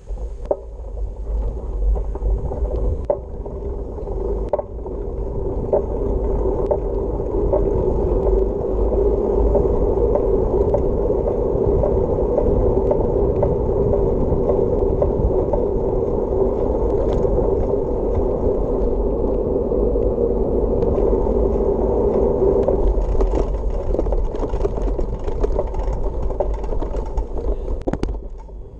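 Wheels rolling steadily over an asphalt path, with wind rumbling on the microphone and scattered small knocks from bumps. The sound cuts off sharply just before the end.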